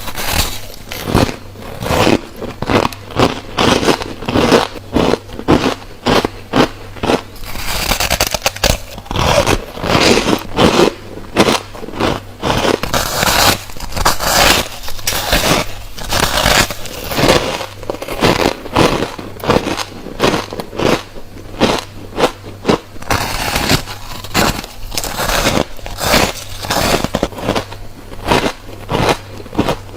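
A person taking bite after bite of refrozen white freezer frost: crisp, squeaky crunches in quick, irregular succession.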